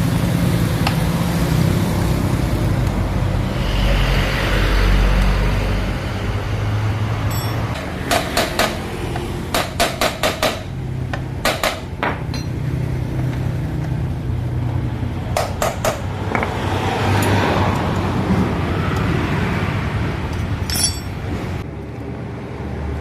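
Metal hand tools tapping and clinking in a few quick clusters over a steady low background rumble, as work begins on opening a scooter's CVT casing.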